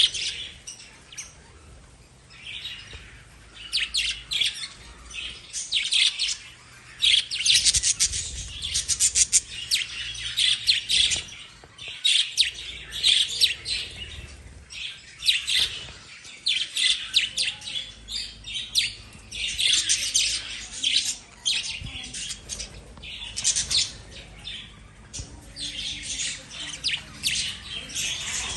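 Lovebirds chirping: dense runs of short, high calls in quick succession, coming in bursts with brief lulls.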